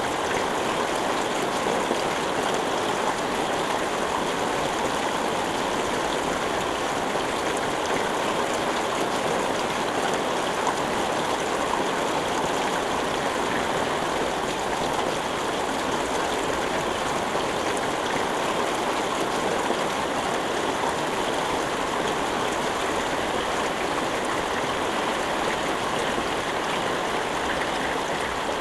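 Steady heavy rain falling and splashing on surfaces, a continuous even hiss with no thunder.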